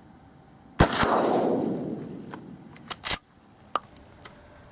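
A 12-gauge shotgun fires a single magnum Foster slug: one sharp, loud report that rolls away over about a second and a half. A few sharp clacks follow, the loudest about two seconds after the shot.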